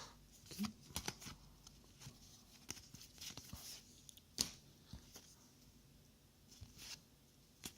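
Trading cards being handled and flipped through: faint scattered clicks and short rustles of card stock, one every second or so.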